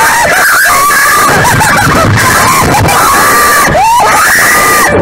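Several roller coaster riders screaming, with long held screams, over loud rushing wind noise on the microphone from the ride's speed.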